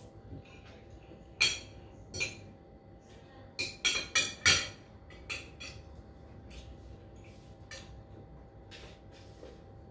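Spoon and fork clinking against a bowl while eating: two separate clinks, then a quick run of four about four seconds in, the loudest, and a few fainter ticks after.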